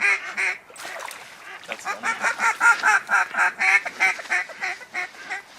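A long, rapid run of duck quacks, about four a second, loudest in the middle and tapering off near the end.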